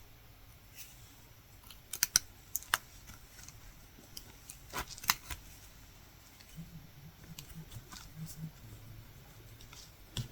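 Latch hook tool clicking as yarn is hooked and pulled through the rug canvas: a few sharp clicks about two seconds in and again near five seconds, with fainter ticks between.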